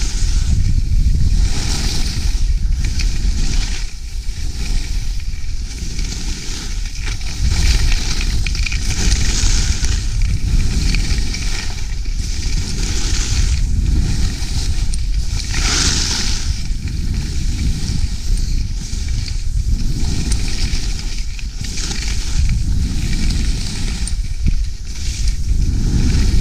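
Skis running on snow, the edges hissing and scraping in a swell every few seconds as the turns link, over a steady low rumble.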